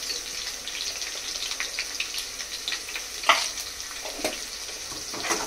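Softened sliced onions frying in hot oil in a pot: a steady sizzle with scattered small crackles. A sharp knock comes about three seconds in, and a softer one a second later.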